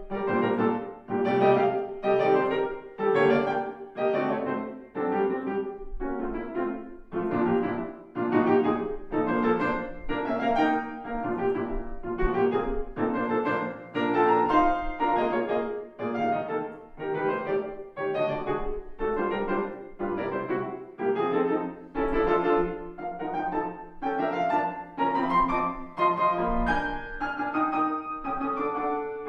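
Longato grand piano played solo: a classical competition piece moving along with a steady pulse of accented notes and chords.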